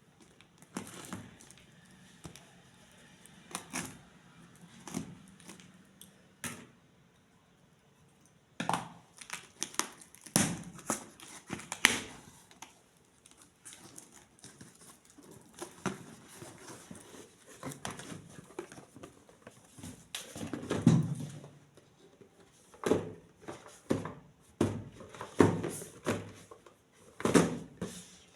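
Hands opening toy packaging: irregular crinkling and tearing of cardboard and plastic, with sharp rustles and taps, a short lull about a third of the way in, then denser handling.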